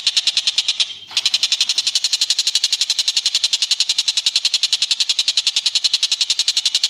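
Cililin calling in a fast, even trill of high pulses, about ten a second, with a short break about a second in.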